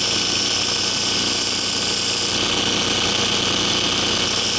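Belt grinder running steadily, grinding a small metal Showa shock compression adjuster part held against the belt to sand its face flat.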